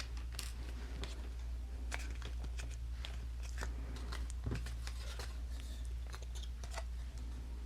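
Cardstock pieces being handled: scattered light taps, rustles and crinkles of stiff paper, over a steady low hum.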